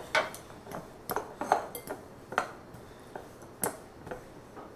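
A metal utensil stirring and pressing a thick chocolate crust dough in a glass mixing bowl, with irregular clinks against the glass, two or three a second.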